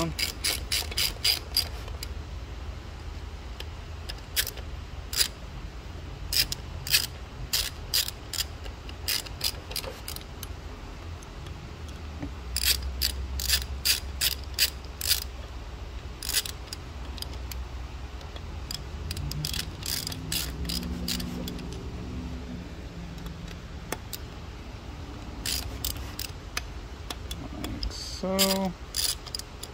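Hand ratchet clicking in quick runs with pauses in between as it snugs down the hex-head bolts on a Procharger supercharger's aluminium case, one bolt after another.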